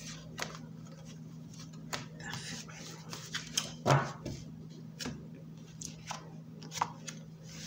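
Tarot cards being dealt onto a cloth mat: scattered soft taps, slaps and slides of cards being picked from the deck and laid down, the loudest about four seconds in, over a faint steady low hum.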